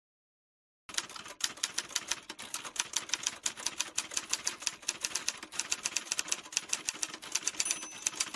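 Typewriter sound effect: rapid clacking keystrokes, several a second, starting about a second in.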